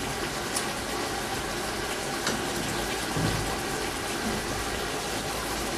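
Thick masala gravy with meat and potatoes bubbling steadily at a boil in a large aluminium pot.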